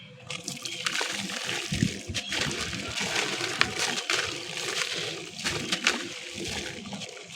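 Concrete being crumbled in water: gritty crunching and crackling with wet sloshing, and many small sharp cracks throughout.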